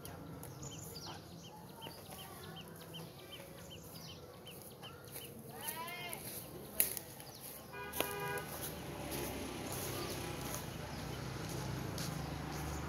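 Faint village background: a bird's quick repeated chirps, then a short rising-and-falling crowing call, a sharp click, and a brief horn toot about eight seconds in, over a low engine hum that builds toward the end.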